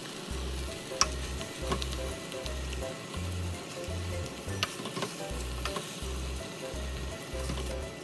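Curry base sizzling in a pot as canned whole tomatoes are stirred in and broken up with a ladle, with a few sharp clicks of the ladle against the pot.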